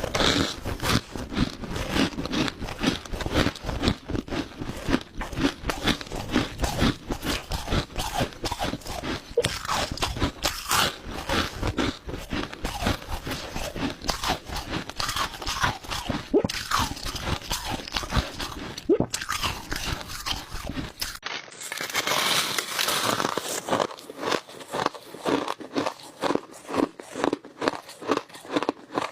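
Crushed ice being chewed close to the microphone: a dense, continuous run of crisp crunches. About two-thirds of the way through the sound changes abruptly, and the crunching carries on in a more regular rhythm of a few bites a second.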